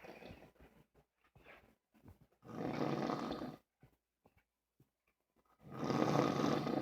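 Snoring: the end of one snore, then two loud snores about three seconds apart, each lasting about a second, with faint breathing sounds between them.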